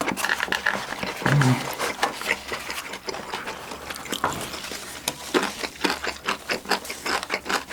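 Eating sounds: a run of quick, irregular clicks and taps of a spoon against a bowl as chicken and rice are eaten.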